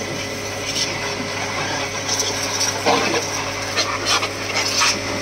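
Electric high-pressure washer pump running with a steady hum while its water jet hisses and spatters against a tractor canopy, washing the mud off. A short pitched sound cuts in about three seconds in.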